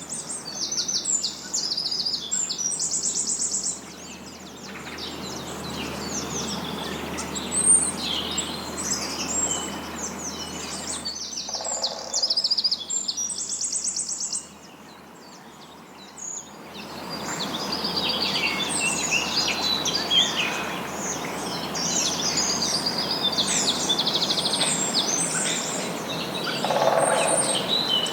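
Several songbirds singing and chirping, with quick repeated trills, over a steady background rush of noise.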